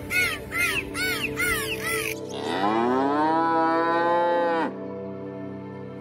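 A cow mooing once: a long call that rises in pitch, holds, then cuts off suddenly, over steady background music. Before it comes a run of short, high, rising-and-falling animal calls, two or three a second.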